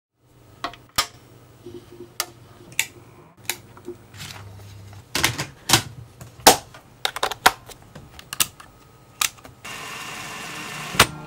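A cassette being handled and loaded into a portable cassette player: a string of sharp plastic clicks and clunks from the cassette, the door and the keys. Near the end a steady hiss sets in as the tape starts to run, with one more click.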